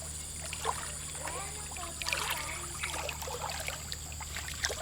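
Shallow stream water trickling and flowing, with faint children's voices.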